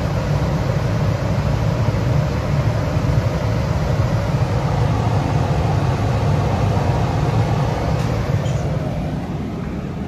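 Tempstar gas furnace's blower running steadily, with its access door off. The sound is an even, loud hum and rush that eases off slightly near the end.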